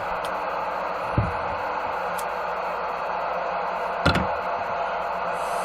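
CB radio receiver hissing with steady static on an open channel, the hiss thin and band-limited like radio speaker audio. Two faint clicks, about a second in and again about four seconds in.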